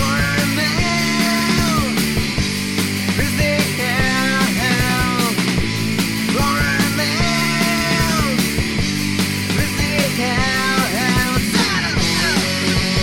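Rock music, in a punk or grunge style, with a singing voice carrying the melody over a steady band.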